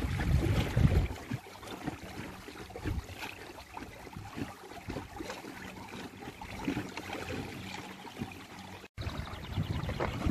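Water lapping and trickling against the hull of a small boat under way on a lake, with irregular small splashes. Wind buffets the microphone for about the first second and again just before the end.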